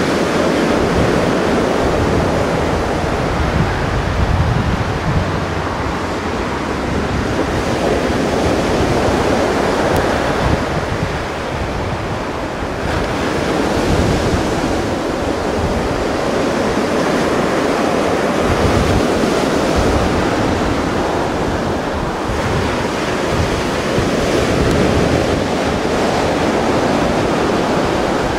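Mediterranean surf washing on the shore, a steady rush of waves that swells and eases every few seconds, with wind buffeting the microphone.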